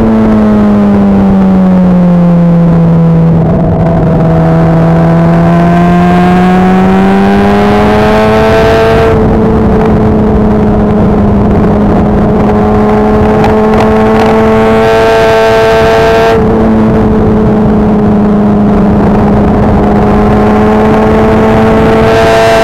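Motorcycle engine heard from onboard on a race track over steady wind rush. The engine note falls for the first few seconds as the bike slows into a corner, climbs again for several seconds as it accelerates out, then holds nearly steady, rising again near the end.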